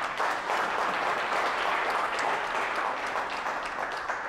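Audience applauding, easing off a little near the end.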